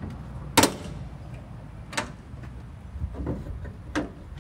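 Side door of a Land Rover Defender being handled: a sharp clack about half a second in, then three lighter knocks and clicks spread over the next few seconds.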